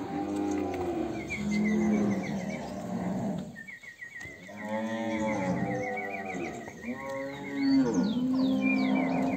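Cattle mooing: three long, low moos one after another, with a high warbling tone running alongside them.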